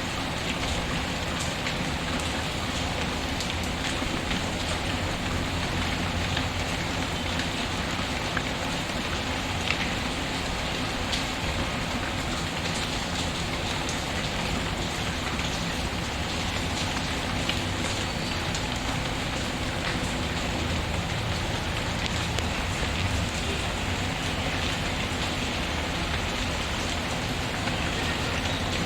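Steady rain mixed with a crackling wood fire, with faint small pops and ticks scattered through the even hiss.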